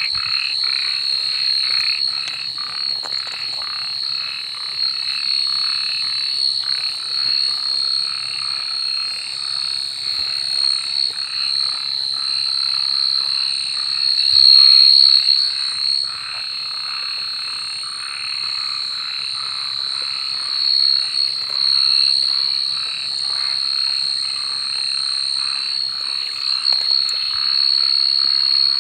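Night chorus of many frogs croaking over one another in quick repeated calls, over a steady high-pitched ringing trill; the chorus swells briefly about halfway through.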